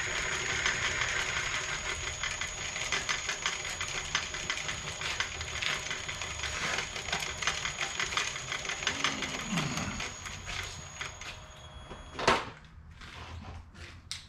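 A milling machine runs with a spiral end mill cutting the metal edge of a lathe steady rest, a steady mechanical whirr with a fast, ragged clicking from the cut. The noise dies away about eleven seconds in, and a single sharp knock follows.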